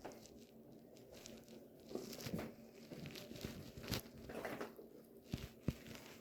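A dog scrabbling and rustling as it hunts a mouse, with faint scratches and clicks and two soft knocks about five and a half seconds in.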